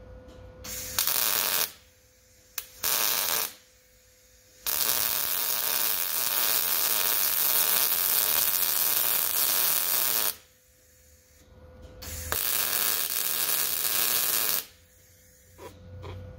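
Arc welding on a steel bumper: four runs of the arc's steady hiss, two short ones in the first few seconds, then a long one of about five and a half seconds and one of about two seconds, each starting and stopping abruptly. A faint steady hum lies underneath.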